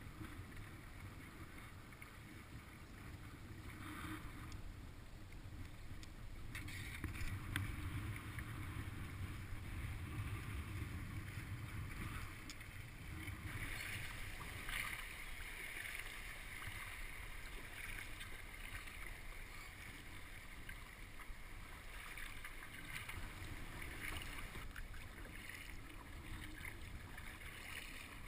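Water swishing and lapping around a kayak as it is paddled, over a low rumble of wind on the microphone.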